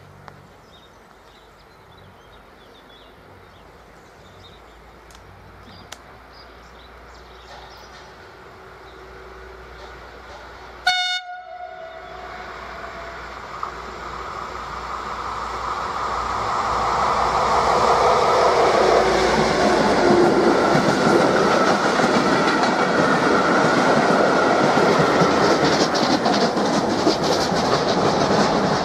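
FS class D345 diesel locomotive sounding one short horn blast about eleven seconds in, then drawing a train of vintage Centoporte carriages past, with steam locomotive 640 003 at the rear. The train noise grows steadily and stays loud through the last third, with wheels clicking over rail joints near the end.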